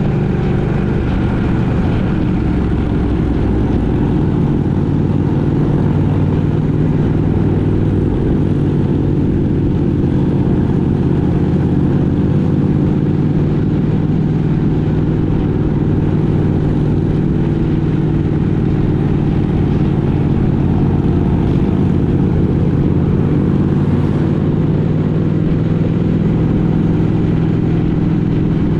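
Engine of a road vehicle running steadily at cruising speed, a constant drone that holds the same pitch with no gear changes or revving.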